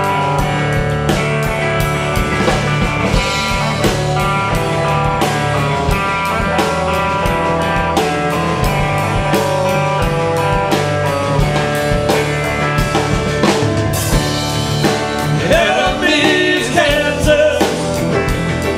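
Live rock band of piano, drum kit, bass and electric guitar playing an instrumental passage, the drums keeping a steady beat under held chords. Near the end a wavering, bending melodic line rises above the band.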